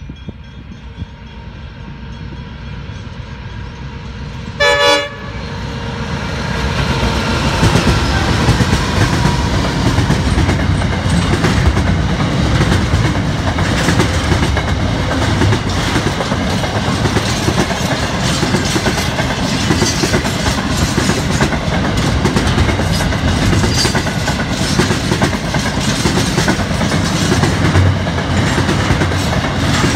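Container freight train approaching, its locomotive giving one short horn blast about five seconds in. Then the locomotive and a long line of loaded container wagons roll past close by, with a steady rumble of wheels on rail.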